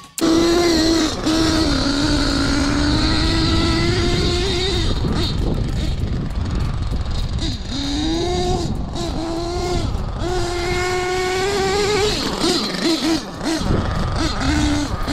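Force 32 nitro engine of a Hobao Hyper MT Sport 1/8-scale RC monster truck running at high revs with a high, buzzing whine. The pitch holds fairly steady, dips and climbs again several times about halfway through as the throttle is worked, and wavers near the end.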